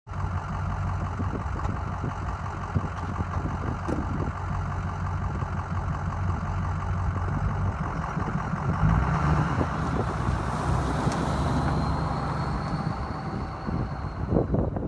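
Ford 6.0 Powerstroke V8 turbo-diesel engine running steadily, its note stepping up a little about nine seconds in, with a faint high whistle rising and falling over the next few seconds.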